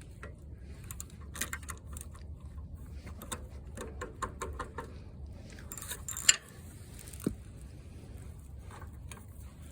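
Scattered light metal clicks, clinks and scrapes of hand tools on an engine, with a quick run of small ticks in the middle and one sharper clink about six seconds in.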